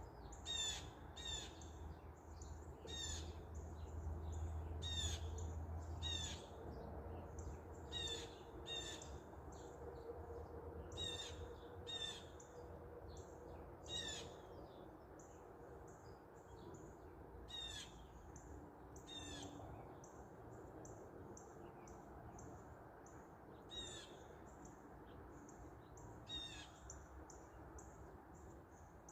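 Wild birds calling: repeated short, sharp calls at irregular intervals, mixed with quicker high chirps. Wind rumbles on the microphone for the first several seconds.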